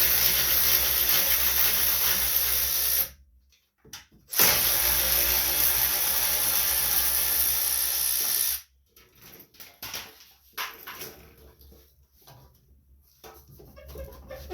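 Power drill spinning a socket in two runs, about three seconds and then about four seconds, each cutting off suddenly, backing out a half-inch bolt. After that come a few faint clicks and rattles of handling.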